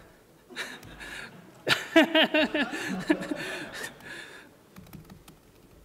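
A man laughing briefly into a close microphone, a run of short pitched "ha" pulses about two seconds in. It is followed near the end by a few faint laptop keyboard clicks.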